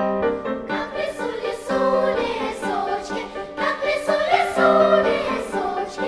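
Children's choir singing a Russian folk song with instrumental accompaniment, the voices entering about a second in after the instrumental introduction.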